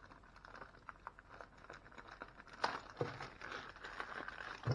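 Packaging and small accessories being handled: rustling and crinkling with light clicks, and a few sharper knocks a little past halfway and again near the end.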